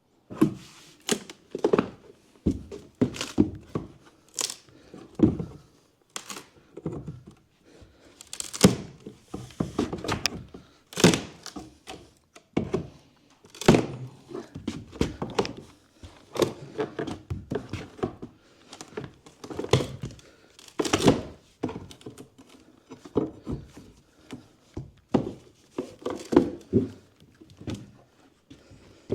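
Old bathroom flooring being ripped out: a string of irregular thuds and knocks, with cracking and tearing of boards and floor covering as they are pried up.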